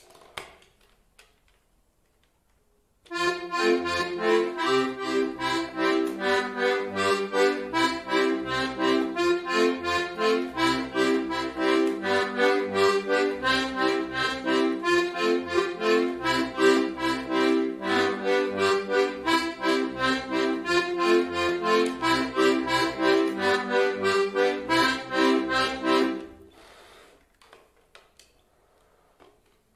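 Small piano accordion played solo: a quick run of melody notes over pulsing bass notes, starting a few seconds in and stopping cleanly a few seconds before the end, followed by faint handling sounds.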